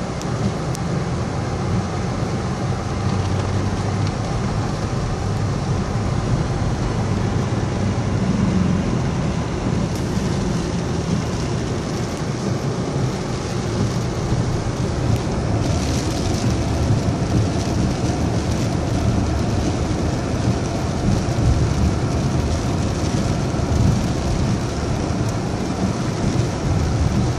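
Rain and road noise inside a moving car in a storm: a steady low rumble of engine and tyres on wet, flooded streets, under an even hiss of rain.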